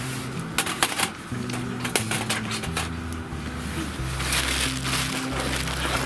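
Background music with a steady, stepping bass line. A few sharp clicks and knocks come between about half a second and two seconds in.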